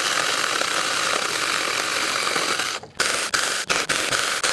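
A battery-powered 6-inch mini chainsaw cutting through a dense log: a steady, rasping chain-in-wood noise. It breaks off sharply for a moment about three seconds in, then resumes with several short breaks.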